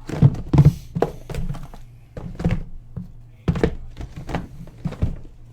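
Sealed boxes of trading cards being handled and set down: a string of irregular dull thunks and knocks, more than a dozen in a few seconds.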